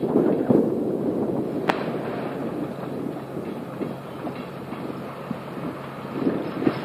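Covered hopper cars of a long freight train rolling along the track, wheels clicking and clattering over the rail joints, easing off slightly as the train moves away. A single sharp click about two seconds in.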